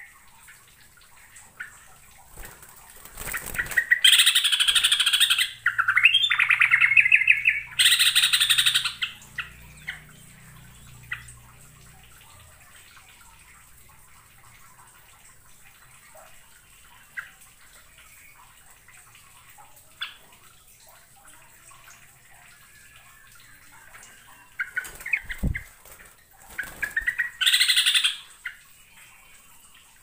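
Yellow-vented bulbul singing: a loud bout of song about four seconds in lasting several seconds, and a second shorter bout near the end, with faint scattered chirps between.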